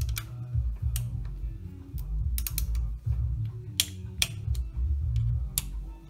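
Irregular sharp metallic clicks of a torque wrench's ratchet as bolts are run down toward 9 Nm, over background music.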